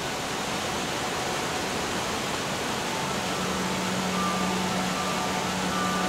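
Waterfall with a steady rush of falling water. Faint held tones come in about halfway through.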